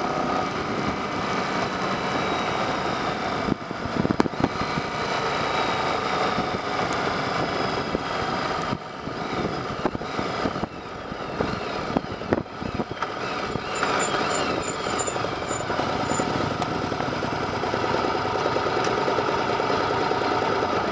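Yamaha XV750 air-cooled V-twin motorcycle engine running under way, mixed with heavy wind rush on the bike-mounted microphone. The engine note falls in the middle, and there are a few sharp thumps on the microphone.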